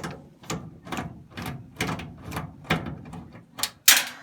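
Ratcheting screwdriver clicking about twice a second as it backs a screw out of a dryer's sheet-metal panel, with a louder sharp clack near the end.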